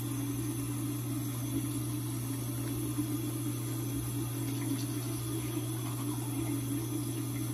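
Electric toothbrush buzzing steadily while brushing teeth, its tone wavering slightly as it moves against the teeth. A steady low hum runs underneath.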